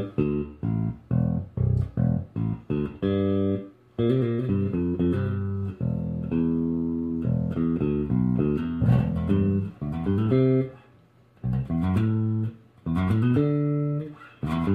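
Five-string Fender Squier electric bass, fitted with a Hipshot all-aluminium A-style bridge, played through an Ampeg Micro-VR bass head and 2x12 cabinet with the amp's tone controls flat: a run of plucked notes and short riffs, some notes held, with a brief pause about eleven seconds in.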